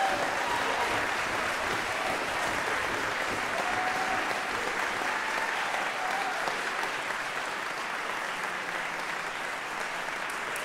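Audience in a recital hall applauding steadily at the end of a vocal performance, easing off slightly toward the end.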